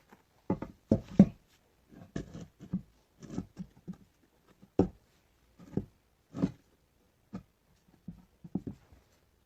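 An irregular series of short knocks and thumps, about a dozen over the stretch. The loudest come about a second in and just before five seconds.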